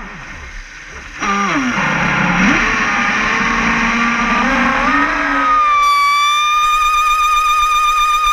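RC speedboat motor whining, heard from on board. It winds down to a low level as the throttle is cut, comes back about a second in with a rushing hiss, climbs unevenly in pitch, and settles into a steady high whine for the last couple of seconds.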